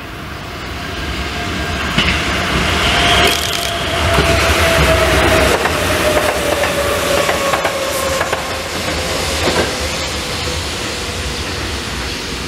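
Sanyo Electric Railway 3000-series electric train (set 3100F, steel car 3619 leading) running past, its wheels clicking over rail joints under a steady whine that slowly falls in pitch. The sound builds over the first couple of seconds as the train nears.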